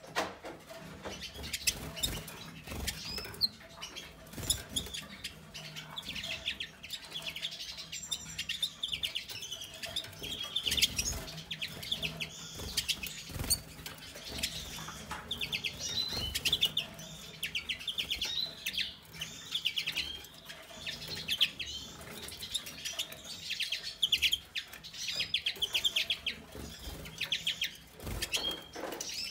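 Small caged finches chirping and twittering, with quick runs of rapid high notes repeated throughout. Light wing fluttering, and small splashes near the end as a bird bathes in a water dish.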